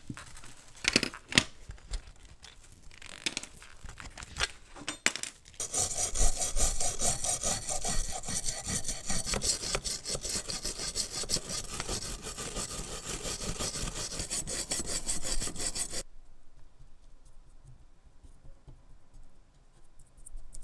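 A small brass wire brush scrubbing rust and flaking paint off a diecast model car body in rapid back-and-forth strokes, a steady scratching that stops well before the end. Before it come light clicks and crackles as the rusty model chassis is handled.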